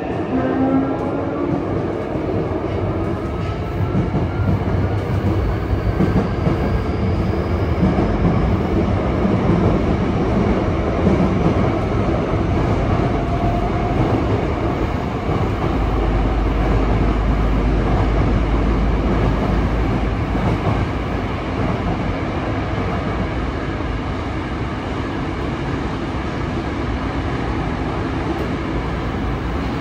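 Yokohama Blue Line 3000S subway car running, heard from inside the car: the Mitsubishi IGBT-VVVF inverter and traction motors whine with rising pitch as the train accelerates away from the station over the first several seconds. After that, a steady rumble of wheels on rail continues through the tunnel.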